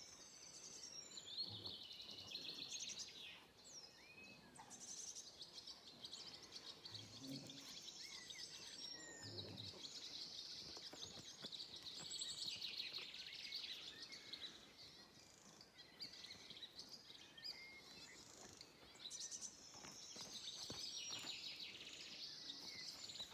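Faint birdsong: several wild birds chirping and singing over quiet outdoor background noise.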